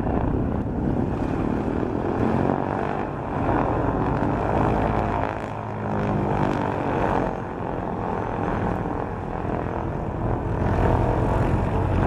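Piston aircraft engines at taxi power: a B-25 Mitchell's twin Wright Cyclone radial engines and propellers droning as it rolls toward the microphone, with an Avro Lancaster's Merlin V12s taxiing close past in the middle. The drone grows louder near the end.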